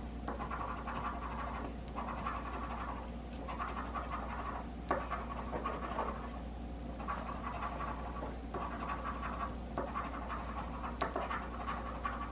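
Scratching the coating off an instant lottery scratch ticket: quick rasping strokes in runs of one to two seconds, broken by brief pauses.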